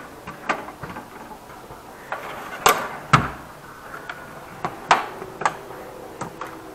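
Steel drawers of a Craftsman tool chest being shut and pulled open: a series of sharp metal clacks and knocks, about one a second, with a deeper thud about three seconds in.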